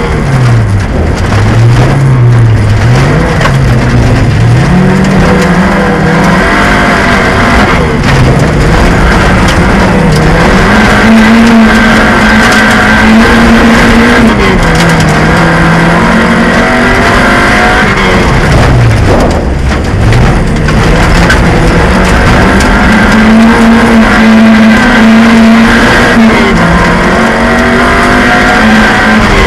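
Autocross car's engine heard from inside the stripped cabin, run hard: its note climbs and drops again and again with gear changes and lifting off for corners, held high for stretches and falling deep once about two-thirds through. A steady rumble and rattle of the dirt surface under the car runs beneath it.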